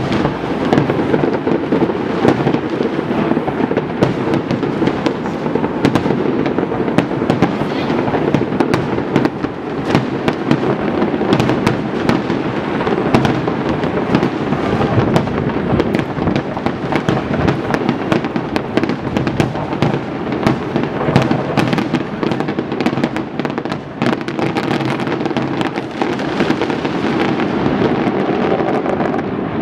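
Fireworks display: many aerial shells bursting in rapid succession, a dense run of bangs and crackles over a steady rumble, thinning out near the end.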